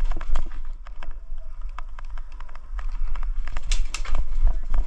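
Irregular sharp clicks and knocks over a low rumble, with a cluster of louder clicks near the end.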